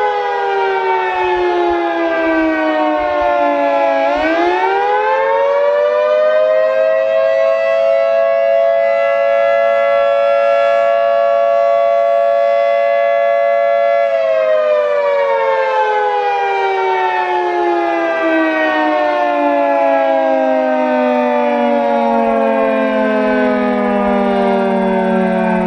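Federal Signal 2T22B two-tone electromechanical warning siren sounding the attack signal. Its pitch falls, climbs quickly about four seconds in, holds steady for about ten seconds, then winds slowly down.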